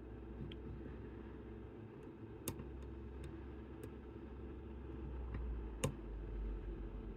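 Small sharp metallic clicks from lock picks working the levers inside a Chubb Detector lever lock, a few scattered clicks with two louder ones about two and a half and six seconds in, over a low steady hum.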